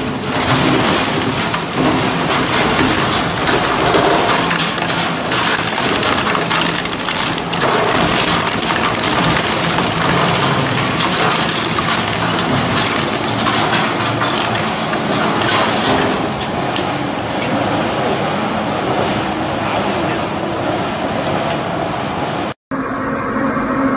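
Twin-shaft industrial shredder crushing a scrap motorcycle: a loud, continuous din of metal and plastic being torn and ground, with frequent sharp cracks. The sound drops out for an instant near the end.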